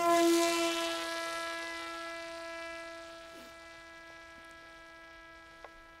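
Parrot Disco fixed-wing drone's electric motor and propeller whining at one steady pitch just after launch. The whine fades steadily as the drone climbs away.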